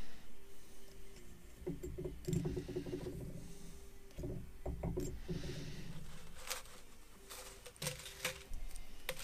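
Pliers and steel spring wire handled on a metal workbench: light scrapes and small knocks, with a few sharper clicks in the last few seconds.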